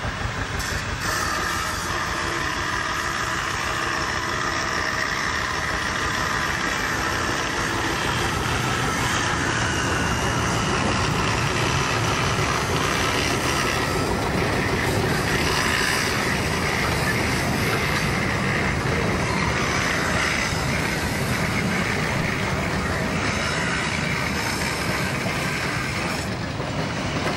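Small 36 hp NS2F narrow-gauge diesel locomotive, built 1957 by LKM Babelsberg, running steadily as it moves a field-railway train, with the wagons' wheels running on the track.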